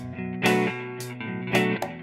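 Background music of strummed guitar chords, struck about every half second.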